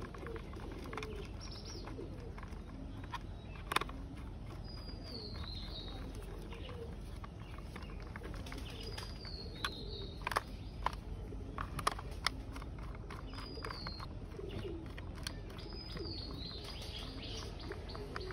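Birds calling: a short high falling chirp repeats every three to four seconds over lower wavering calls. A few sharp clicks come from the screwdriver and the plastic toy car being handled.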